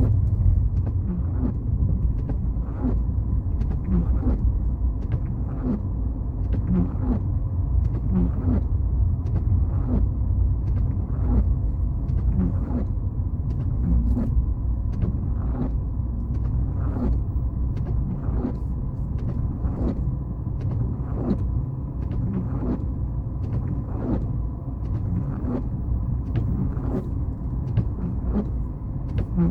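Car driving: steady low road and engine rumble, with short sharp clicks about once a second.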